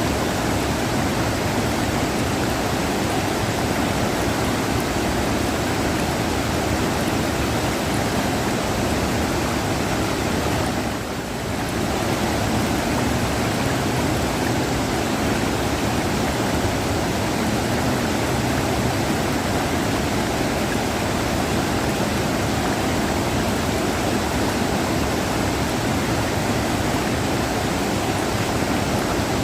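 A river rushing: a steady wash of flowing water, briefly dipping in level about a third of the way through.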